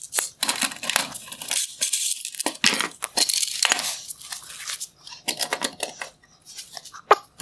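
Metal clicking, scraping and rattling as the small 8 mm nuts holding a headlight projector to its bracket are worked off their bolts; the clatter thins out after about five seconds.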